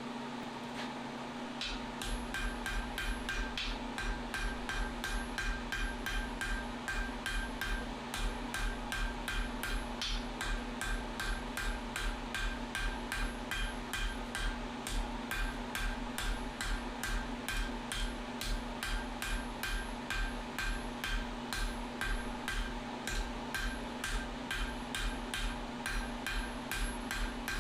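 Hammer blows on hot steel at the anvil, a steady run of about three strikes a second starting about two seconds in, forging a burnt tong jaw of sucker rod back up to full thickness. A steady low hum sits under the strikes.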